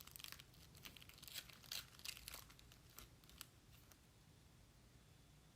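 Foil booster-pack wrapper being torn open and crinkled: faint rustling tears and crackles that stop about three and a half seconds in.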